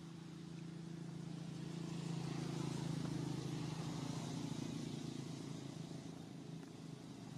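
Low engine hum of a passing motor vehicle, growing louder for the first two seconds or so and then slowly fading.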